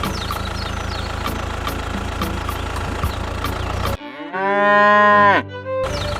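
A steady mechanical hum with regular ticks about twice a second, then a cow's moo about four seconds in: one long call that rises, holds and drops away. The hum cuts out completely during the moo, so the moo is an inserted sound effect.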